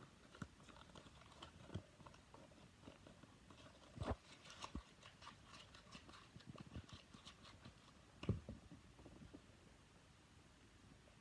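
Faint handling noise: scattered small clicks and rustles of hands and a scrap of paper. There are two louder short knocks, about four seconds in and again about eight seconds in.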